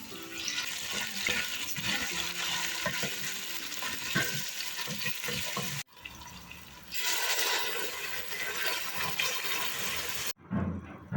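Water running steadily, in two stretches broken by abrupt cuts.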